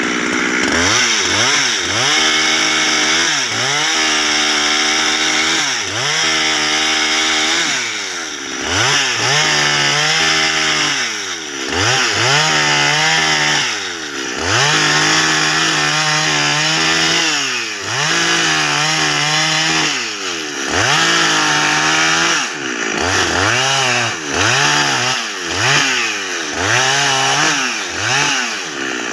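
Two-stroke Husqvarna chainsaw cutting into a squared bayur timber beam. The engine is revved up to full throttle and dropped back to a lower speed about a dozen times, each burst lasting one to three seconds as the bar goes into the wood.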